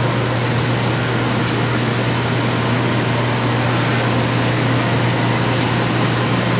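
Cleanroom air handling and equipment fans: a steady rush of air with a low hum underneath. A few faint high ticks come through.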